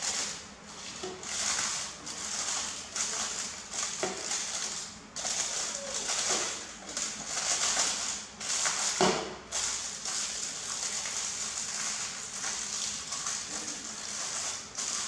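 Aluminium foil crinkling and rustling in irregular bursts as it is pressed and folded down over a bowl, loudest a little after nine seconds in.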